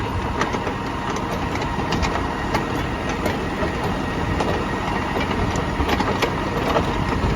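Tractor engine idling steadily, with a few light clicks scattered through from the baler's parking jack being raised.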